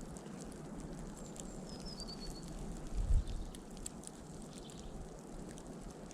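Storm wind as a steady rushing noise, with a gust buffeting the microphone about three seconds in and scattered small ticks. A small bird gives a short descending series of high chirps about two seconds in.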